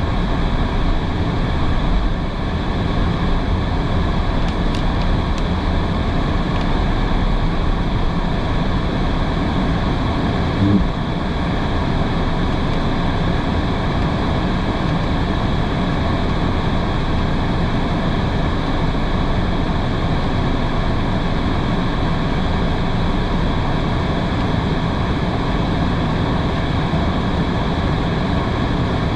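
A car driving in heavy rain: a steady low rumble of road and engine noise with the hiss of tyres and rain on a wet road, and a brief thump about eleven seconds in.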